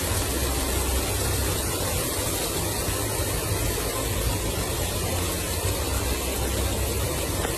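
Heavy rain falling, a steady dense hiss with a low rumble underneath.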